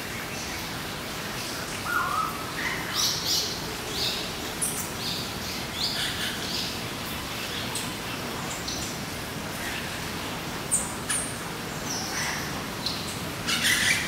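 Tropical birds in a zoo aviary chirping and calling: many short, high calls, some in quick runs, scattered throughout over a steady background hiss.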